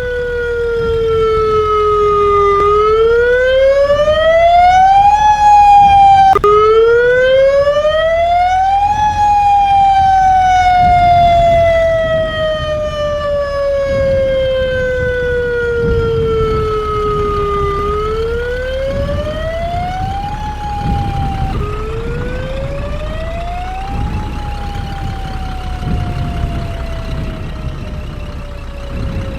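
Outdoor tornado warning siren sounding a wail, its pitch rising over two or three seconds and then falling slowly over several, four times over, with a low rumble underneath.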